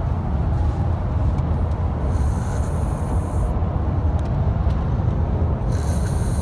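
Snoring, with two long hissing breaths in a slow rhythm, one about two seconds in and another near the end, over a steady low rumble.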